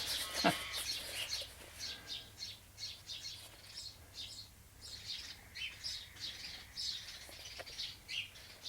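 Small birds chirping: a steady run of short, high chirps, with one sharp click about half a second in.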